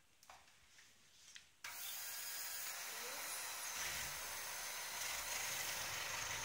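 A few faint clicks, then about a second and a half in an electric hand mixer switches on abruptly and runs steadily, its beaters working flour, butter and egg into a cookie dough.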